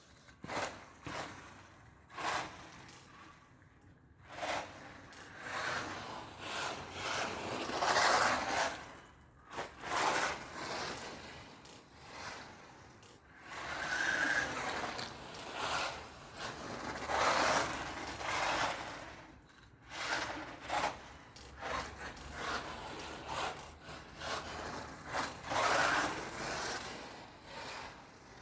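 WLtoys 124017 1:12 RC buggy's brushless electric motor and drivetrain whining up and down in repeated throttle bursts, its off-road tyres scrubbing and scraping on the paved track surface.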